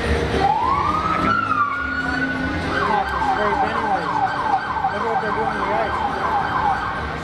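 A siren sounding: one rising wail that holds its pitch, then a fast yelp, about three to four sweeps a second, that stops shortly before the end.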